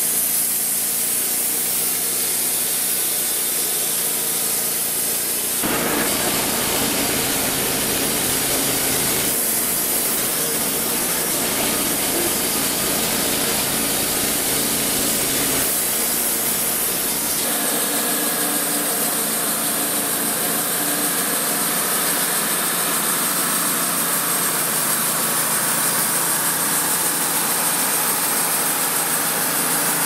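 Wood-Mizer LT35 portable band sawmill running: its engine drives the band blade as it saws lengthwise through a white pine log, a steady mechanical run with a hissing cut. The sound changes abruptly a few times.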